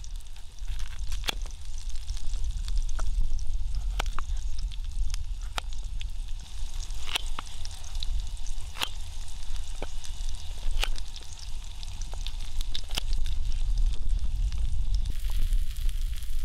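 Kitchen knife cutting a peeled potato into chunks on a bamboo cutting board, the blade clicking against the board every second or two over a steady low rumble. Near the end, sliced onions sizzle in a skillet over a wood fire.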